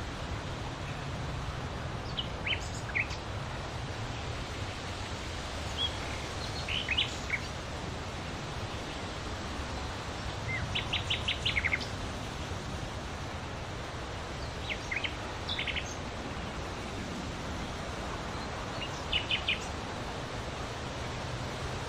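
Birds calling outdoors: scattered short high chirps, with a couple of quick runs of several notes, over a steady background hiss and low rumble.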